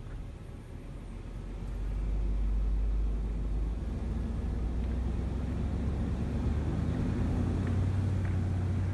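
Car engine running with a steady low hum, getting louder about two seconds in and then holding level.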